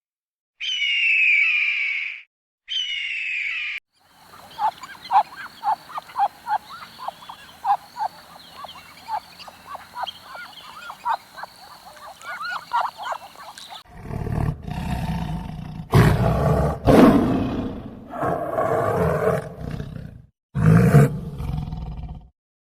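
A run of short animal-call clips: two brief high calls, then a long stretch of quick repeated chirps over a steady high tone, then several deep, rough roars, which are the loudest part.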